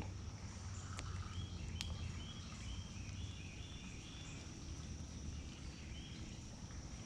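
Outdoor creekside ambience: a steady high whine and short repeated chirps from small animals over a low rumble, with two faint clicks about one and two seconds in.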